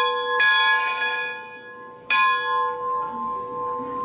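Large schoolhouse bell on a post rung by pulling its rope: two strokes, one about half a second in and another about a second and a half later, each ringing on and slowly fading.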